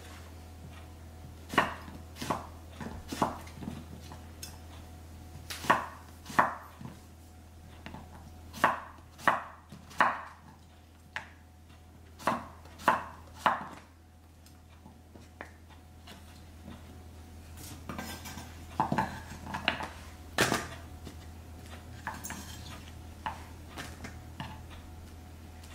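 Santoku knife chopping yellow squash into half moons on a wooden cutting board. The blade strikes the board in sharp single knocks, mostly in groups of two or three, with a pause of a few seconds about halfway through, over a steady low hum.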